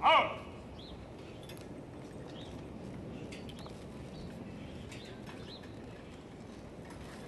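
A short loud call right at the start, then open-air quiet with small birds chirping now and then and a few faint clicks.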